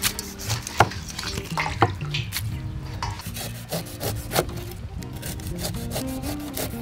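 Cleaver slicing the rind off a pineapple on a wooden chopping board: a series of short cutting and scraping strokes that come faster and closer together near the end.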